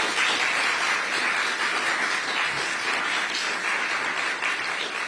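Audience applauding steadily, dying away at the end.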